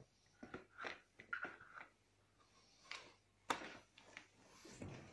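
Quiet handling noises from a baby stroller's carrycot being gripped and moved on its frame: scattered rustles and light clicks, the sharpest click about three and a half seconds in.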